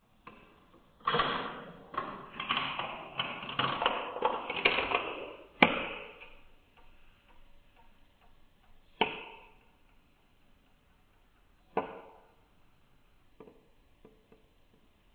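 A GraviTrax marble rattling down through the plastic Flextube for about four seconds, then a sharp click as it drops onto the trampoline piece. Three fainter, separate clicks follow over the next several seconds.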